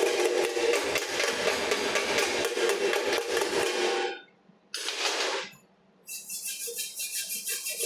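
Stick welding arc crackling steadily, breaking off about four seconds in, then struck again briefly a second later. Near the end a different, rhythmic high-pitched sound takes over.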